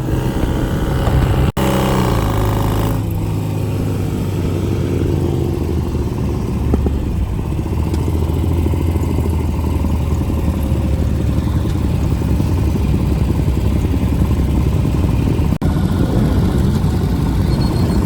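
Motorcycle engines running steadily at low speed, a deep rumble. About two seconds in, a louder engine drops in pitch, as when a rider rolls off the throttle. The sound cuts out for an instant twice, once near the start and once near the end.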